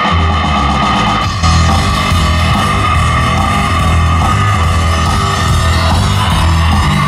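Live rock band playing: electric guitar over bass and drums. The bass and drums kick in right at the start, and the music gets a little louder about a second and a half in.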